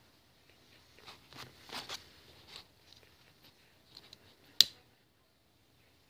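Soft rustling and scraping of small parts being handled, then one sharp, loud click about four and a half seconds in as a lighter is struck.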